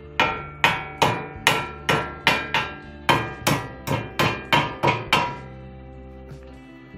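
Hand hammer striking freshly welded joints on steel profile tube, knocking off welding slag: about two sharp blows a second, the steel ringing after each. The blows stop about five seconds in.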